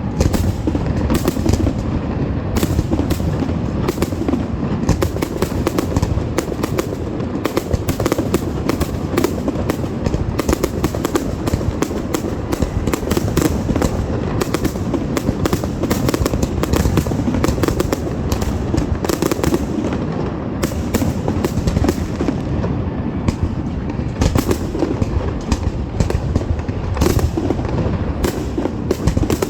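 Fireworks going off in a dense, continuous barrage: many sharp bangs and crackles a second over a steady rumble of booms, with no pause.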